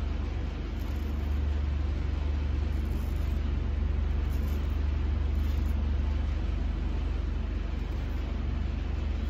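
A steady, low-pitched machine drone, such as an idling engine or a ventilation fan, running without change.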